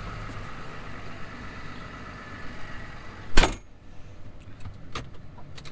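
Tractor engine idling steadily, with one loud door slam about three and a half seconds in; after the slam the higher hiss falls away.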